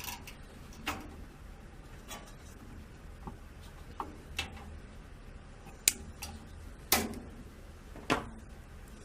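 Scattered sharp clicks and light plastic knocks from hands working a cable tie and fan cable inside a computer case, with the loudest clicks about six and seven seconds in.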